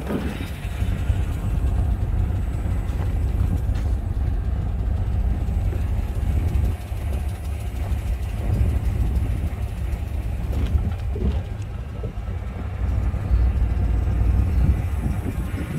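Vehicle moving slowly along a street: a steady low rumble of engine and tyres that rises and falls a little throughout.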